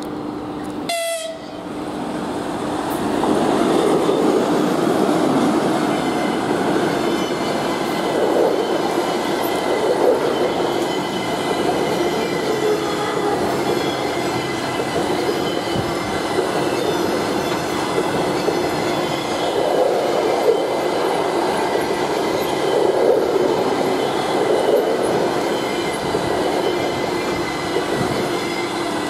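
Passenger train coaches passing close by at speed: a steady rumble of wheels on rail with clatter over the rail joints, swelling every few seconds, over a steady hum. It breaks off briefly about a second in, then grows louder.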